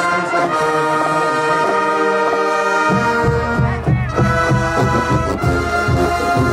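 Music led by brass horns playing sustained chords; a heavy low drum beat comes in about three seconds in.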